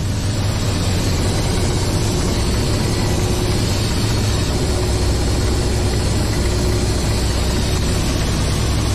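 Ka-52 attack helicopter's twin turboshaft engines and coaxial rotors running steadily in low-level flight, heard from inside the cockpit as a loud, dense, unbroken drone with a heavy low rumble.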